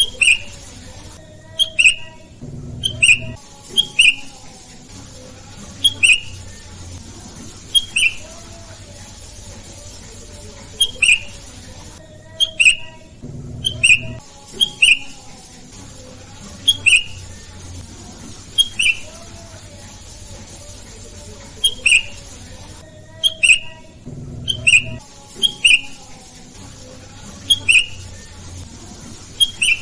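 Sooty-headed bulbul (kutilang) calling: short, sharp notes repeated every second or two, over a fainter wavering lower whistle.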